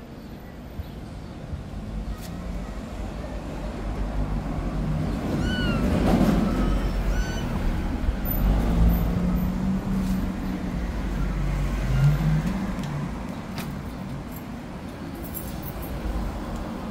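A kitten mews twice, short high arched cries about five and a half and seven seconds in. Under them runs the low rumble of a passing motor vehicle, which swells in the middle and fades toward the end.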